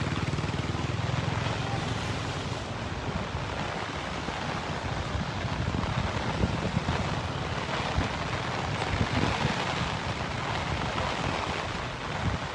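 Steady rushing storm noise of a typhoon downpour: wind and rain on the microphone, with uneven low rumbles that are heaviest in the first couple of seconds.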